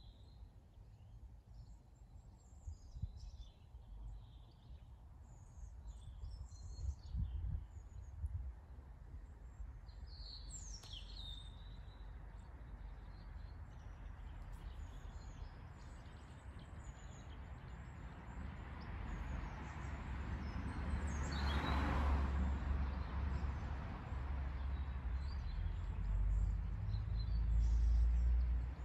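Outdoor stillness: scattered small-bird chirps and calls over a low rumble. A rush of noise swells to a peak about two-thirds of the way through and then eases only partly.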